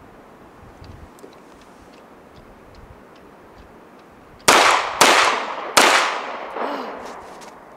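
Three pistol shots from a CZ 75 SP-01 Shadow, fired a little over half a second apart about four and a half seconds in, each report ringing out, then a faint clink.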